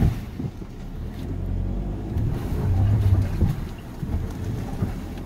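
Volkswagen Tiguan creeping over a rough forest track of old logs, heard from inside the cabin: a low engine and tyre rumble with occasional knocks from the suspension. The engine note grows louder for about a second midway.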